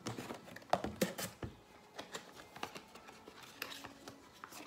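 Candle packaging being handled as the next candle is taken out: irregular rustling with small clicks and knocks.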